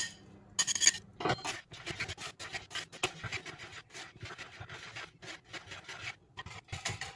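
Wire balloon whisk stirring dry flour mix in a mixing bowl: a quick, even run of scratchy strokes, about four or five a second, with a louder knock about a second in.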